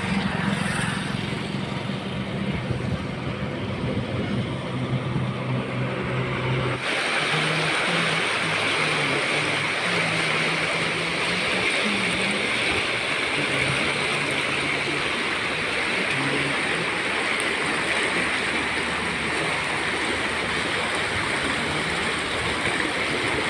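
Rushing of fast-flowing floodwater on a swollen river. For the first seven seconds a broad hiss with a steady low hum underneath, then a sudden change to a brighter, even rush of muddy water churning past close by.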